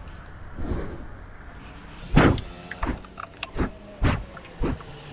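About five sharp clicks and knocks spread over two and a half seconds, beginning about two seconds in: a motorcycle's locking fuel-tank cap being opened and a petrol pump nozzle going into the filler neck.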